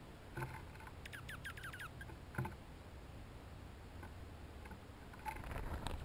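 A small songbird calling: a quick run of about eight falling chirps, with sharp taps on the wooden feeder board before and after. There is a louder rustle near the end.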